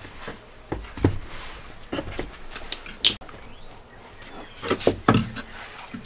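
Irregular knocks and clatter of wooden blocks and offcuts being handled and set down on a plywood floor, with the loudest knocks about a second in, near the middle and again about five seconds in.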